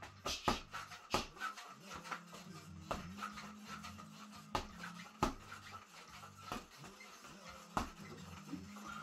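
Boxing gloves punching the spring-mounted head of a homemade reflex bag: irregular sharp thuds in quick flurries, a few hits much louder than the rest.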